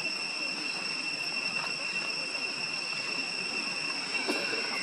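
Steady high-pitched drone of insects, crickets or cicadas, calling without a break, with a faint short sound about four seconds in.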